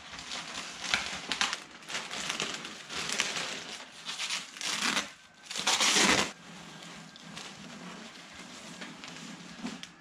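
Plastic wrapping crinkling and rustling as it is cut open with scissors and pulled off by hand, in irregular bursts with the loudest about six seconds in, then a softer rustle.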